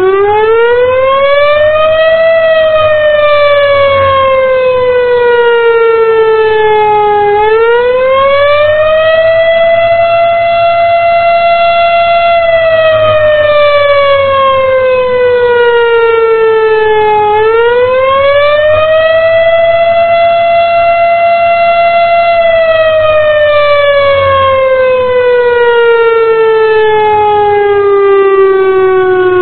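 Federal Signal STH-10A outdoor warning siren sounding a loud wail. Its tone climbs, slides down, climbs back to hold at the top for about three seconds, and does this three times in all before sliding down again near the end.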